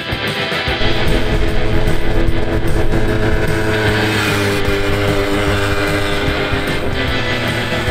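Electric-guitar rock music mixed with a Sachs V5 moped's small two-stroke engine running on the road. The engine sound swells as the moped passes close by about four seconds in.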